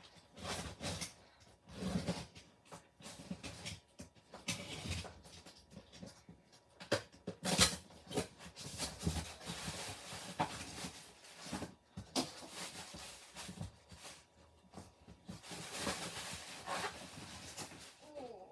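Packaging being handled and opened: irregular crackling, rustling and knocks of cardboard and plastic, with longer crinkly stretches about halfway through and again near the end.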